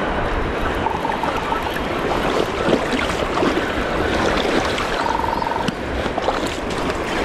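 Steady rushing outdoor noise of wind and river water at the bank, with faint scattered clicks.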